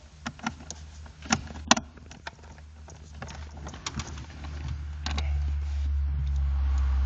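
Sharp clicks and knocks of parts being handled while a Peugeot 807 heater blower fan is fitted, then a low steady hum that builds from about four seconds in.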